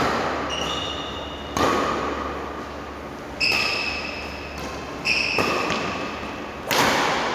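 Badminton rackets hitting a shuttlecock back and forth in a rally: four sharp strikes about every second and a half to two seconds, each echoing in the hall, some with a short high ring after the hit.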